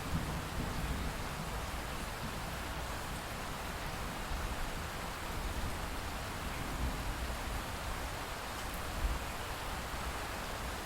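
Steady rain falling, an even hiss with a low, uneven rumble underneath.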